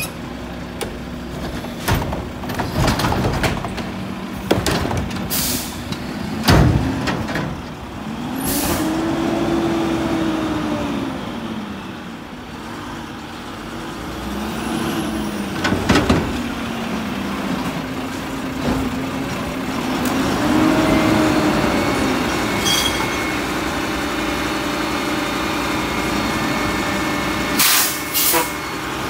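Mack front-loader garbage truck's diesel engine revving up and down several times as it works the cart-dumping arm and pulls away, with sharp air-brake hisses and metallic clunks, most of them in the first several seconds.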